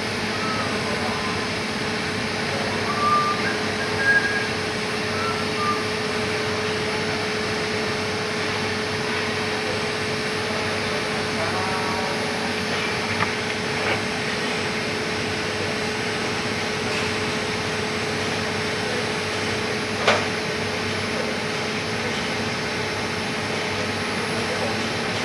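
Steady machine hum and hiss with a constant tone, a few light clicks and short high blips, and one sharp knock about twenty seconds in.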